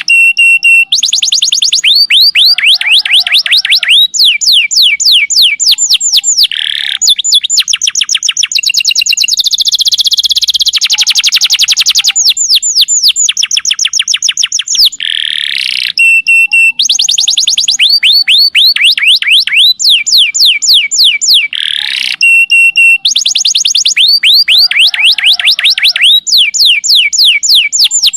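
Domestic canary singing long, rapid trills: phrase after phrase of fast, evenly repeated high notes, each sweeping downward, changing pitch between phrases, with short breaks in between. This is the long, loud 'nembak' style of canary song.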